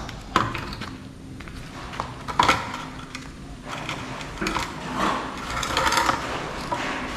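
Scattered knocks, clinks and scuffs as an angle grinder and its power cord are picked up and handled, with the grinder not yet running.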